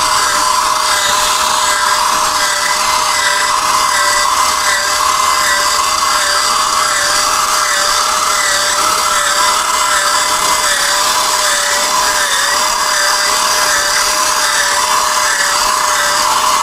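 Electric rotary potato peeler running while it peels a potato into long continuous strips: a steady motor tone that wavers slightly in pitch over an even hiss.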